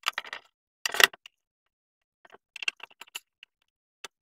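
Short clicks and knocks of a screwdriver and the metal case of a bench DC power supply being handled: a quick cluster at the start, one loud knock about a second in, and a further run of light clicks near the end.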